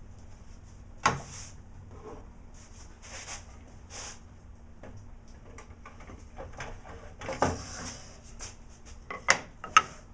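Wooden workpieces and a plastic push block being handled and set down on a cast-iron table-saw top: scattered knocks, slides and clicks, with two sharp clicks near the end.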